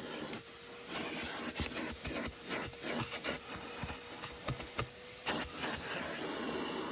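Vacuum cleaner running, its nozzle drawn over car carpet and plastic trim, with a run of clicks and rattles as grit is sucked up and the nozzle knocks the trim. A faint steady whine sounds from about half a second in until about five seconds in.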